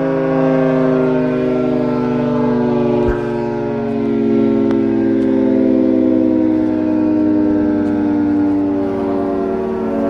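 Federal Signal 2T22 dual-tone rotating electromechanical outdoor warning siren sounding a steady two-tone chord during a test. The pitch drifts slowly lower, and the level swells and fades gently as the head rotates. There is one brief low knock about three seconds in.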